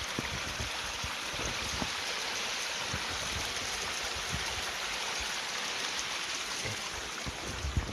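A small woodland creek flowing, a steady rush of running water.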